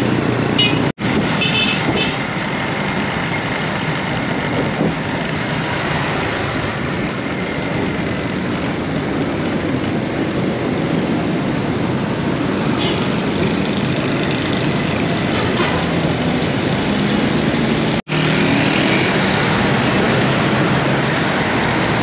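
Steady road traffic, with the engines of motorcycles and small vehicles under road and wind noise, broken by two very brief dropouts: one about a second in, one near the end.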